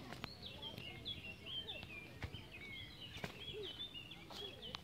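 A songbird singing a continuous run of quick, varied high chirps and warbles. A few sharp clicks stand out, about two and three seconds in.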